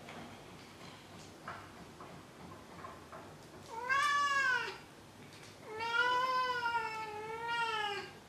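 Domestic cat meowing twice: a short call about four seconds in that rises and falls, then a longer call with a wavering pitch near the end.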